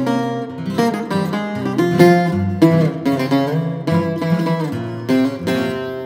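Greek bouzouki playing an improvised taximi in the Hitzaz mode on D: quick runs of plucked single notes over low notes that ring on.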